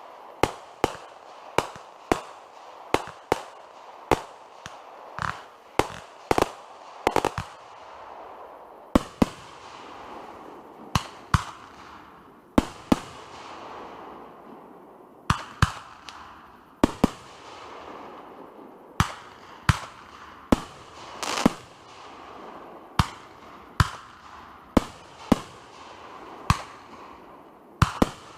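Fireworks going off: a long run of sharp bangs at irregular spacing, often less than a second apart and sometimes in quick clusters, with a continuous hiss between them.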